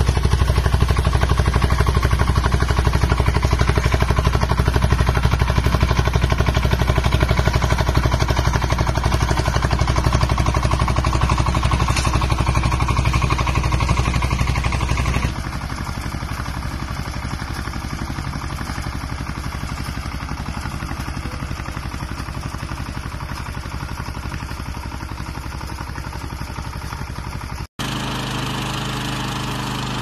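Engine of a small crawler rotary tiller running steadily under load with an even low pulse while the rotor works the ground. About halfway through the sound drops abruptly to a quieter, similar engine drone. Near the end it cuts out for an instant and a different small engine takes over.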